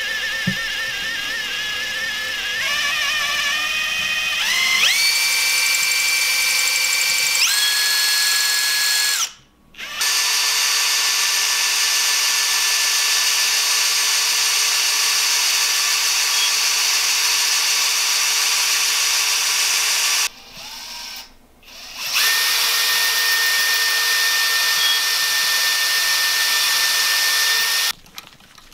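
Power drill boring pin holes with a stepped bit through a steel drilling jig and crank hub into the crankshaft of a BMW N54 engine. The whine climbs in steps as the drill speeds up, then holds steady. It stops briefly about nine seconds in and again about twenty seconds in, and stops near the end.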